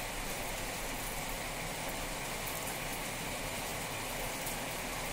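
Rice pakoras deep-frying in hot oil: a steady sizzle with a few faint crackles.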